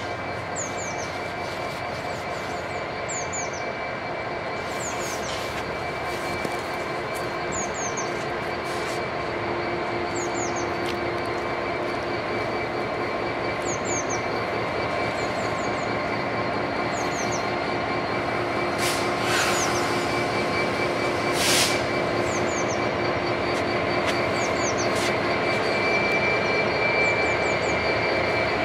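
Class 66 diesel-electric locomotive's two-stroke V12 diesel running as it slowly hauls a train, growing steadily louder as it approaches. A steady high wheel squeal comes from the curved track.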